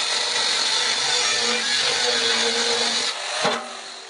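Angle grinder with a cut-off wheel cutting through steel plate, a loud steady whine that stops abruptly about three seconds in; a single sharp knock follows near the end.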